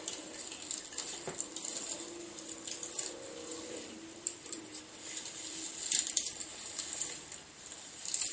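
Scattered small clicks and rustles, a few sharper ones about six seconds in and near the end, with a faint steady hum during the first few seconds.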